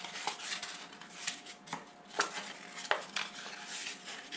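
Thin cardboard from an unrolled toilet-paper tube crinkling and crackling in the hands as it is pulled apart and flattened, in irregular sharp crackles.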